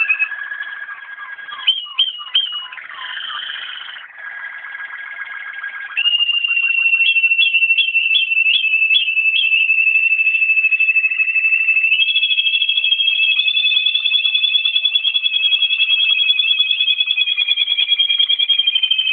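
Waterslager (Malinois) song canaries singing: broken, quieter phrases of trills for the first few seconds, then from about six seconds in a loud, unbroken rolling song with quick bubbling notes, stepping up in pitch about two-thirds of the way through.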